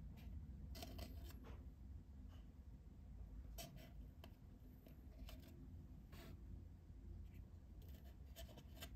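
Faint, sparse clicks and light scrapes of fingers handling small candy pieces and the plastic mold tray of a Popin' Cookin' candy kit, setting the pieces into the wells, over a low steady hum.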